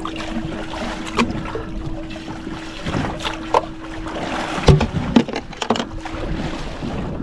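Sounds on board a small fishing boat on open water: a steady hum that drops out for about a second past the middle, over a wash of water and wind, with scattered knocks and clatter. The loudest knock comes about two-thirds of the way in.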